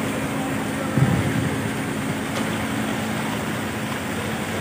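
Crane's engine running steadily while it hoists a submerged truck, with a dull thump about a second in.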